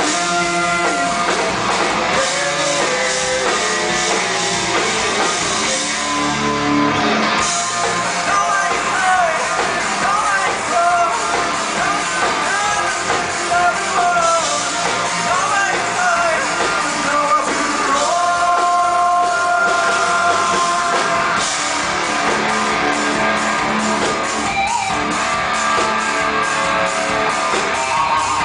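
Metal band playing live: distorted electric guitars, bass and drum kit with sung vocals, heard from the audience in a club.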